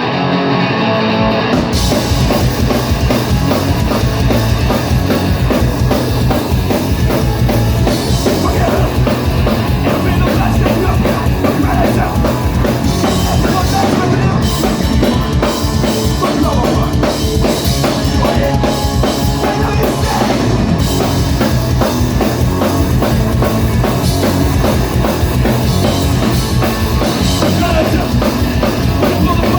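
Live punk rock band playing loud and fast, with full drum kit and distorted guitars coming in about two seconds in.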